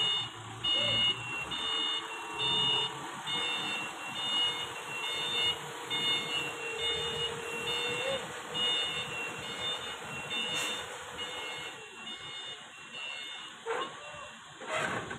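Forklift reversing alarm beeping steadily, about one and a half beeps a second, over the forklift's running engine as it manoeuvres with a load on its forks. The beeping stops about twelve seconds in.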